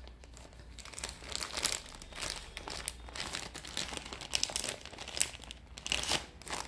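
Clear plastic packets holding coils of plastic basket-weaving wire crinkling as a hand handles them, an uneven crackle with a few sharper crinkles in the middle and near the end.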